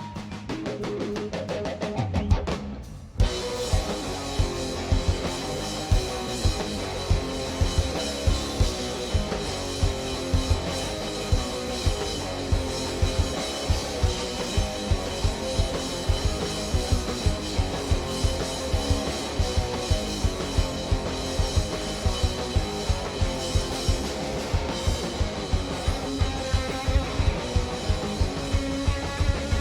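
Live rock band playing an instrumental section with drum kit, bass and electric guitar. The opening is sparser, and the full band comes in suddenly about three seconds in, with a steady beat of drum hits from there on.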